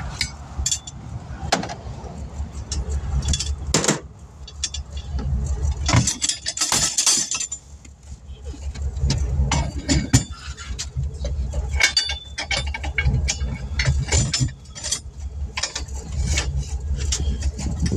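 Scattered metal clinks and knocks of hand tools and wheel hardware being handled, over a steady low rumble.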